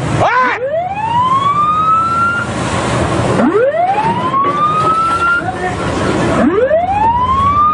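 A ship's siren sounding three rising wails, each climbing for about two seconds and starting about three seconds apart, over a steady rush of wind and churning water.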